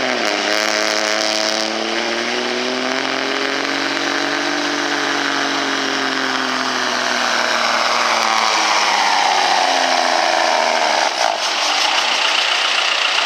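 Altered diesel semi truck pulling a weight-transfer sled at full throttle. The engine note climbs a little for the first few seconds, then sinks steadily as the sled's load drags the engine down.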